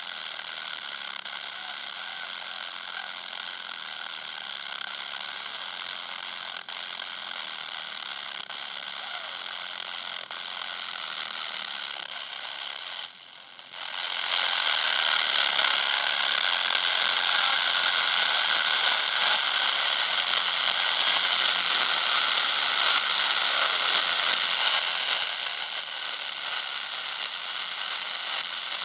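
Radio receiver static hiss with no signal on the frequency. About halfway through it cuts out for a moment, then comes back louder as the volume is turned up, and it drops somewhat near the end.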